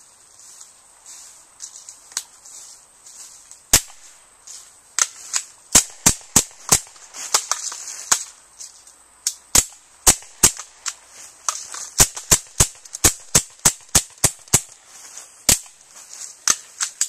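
Rapid, irregular string of sharp cracks from several air guns firing BBs and pellets, mixed with the hits on a galvanized steel BB trap. A few scattered shots at first, then many in quick succession from about four seconds in.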